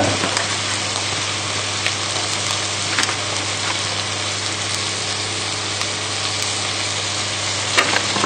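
Beef and vegetables sizzling steadily in a hot enamelled casserole pot, with a few faint clicks and a brief louder rustle near the end.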